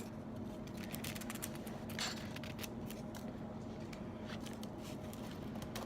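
Eating sounds: scattered small clicks and soft rustles of chewing and handling food and its packaging, with a slightly longer rustle about two seconds in, over a faint steady room hum.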